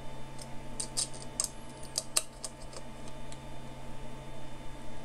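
Light metallic clicks of an Allen key working the screws that lock a resin printer's build platform, tightened for the last time after bed levelling. The clicks come in a quick irregular run over the first three seconds or so, above a steady low hum.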